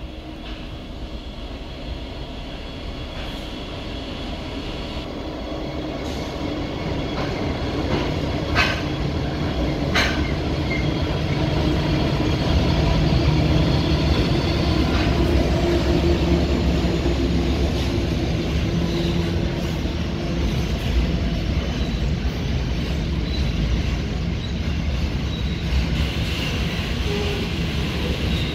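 Diesel-electric freight locomotives (a BL class leading two 82 class) passing close by. Their engine drone grows steadily louder as they approach and go past, then gives way to the rumble and clatter of the wagons rolling by. Two sharp clicks come a second or so apart about a third of the way through.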